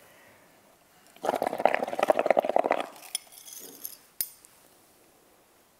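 Air blown through a straw into soapy paint-water in a plastic cup, bubbling in rapid gurgles for about a second and a half as the foam builds up. A fizzy crackle of foam follows, then a single sharp plastic or spoon click.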